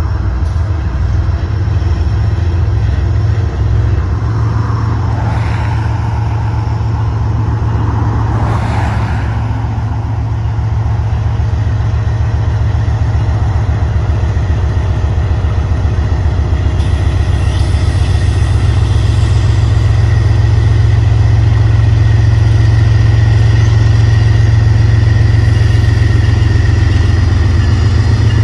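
BNSF diesel-electric locomotives pulling a double-stack container train away from a stand: a steady deep engine drone that grows louder from about ten seconds in as the units throttle up and draw nearer.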